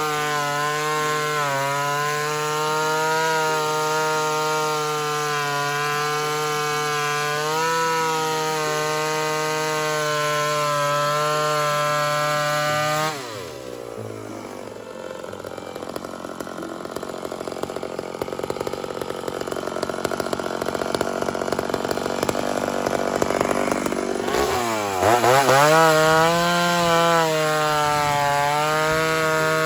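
Ported Homelite chainsaw running wide open at a steady high pitch. About 13 seconds in, the engine pitch drops sharply as it bogs into a cut through wood, and it stays loaded for about 11 seconds. It then sweeps back up to full revs as it comes free.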